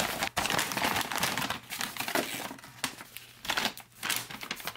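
The stiff plastic outer bag and packets of a Canadian IMP ration crinkling and rustling in irregular bursts as hands rummage inside the bag, busiest in the first two seconds.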